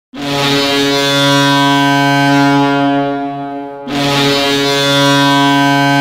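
Kahlenberg KM-135 goal horn sounding two long, steady blasts, dry without reverb: the first fades out shortly before the second starts about four seconds in.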